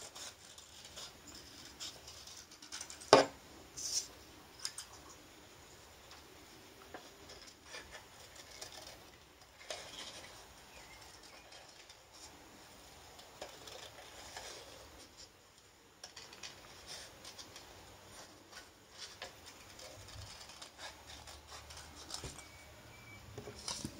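Scissors cutting paper, with quiet paper rustling and handling and a few sharp clicks, the loudest about three seconds in.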